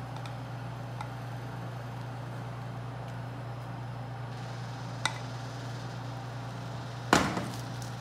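Steady low hum, with a faint click about five seconds in and a sharp knock near the end as a spatula strikes the stainless steel mixing bowl, ringing briefly.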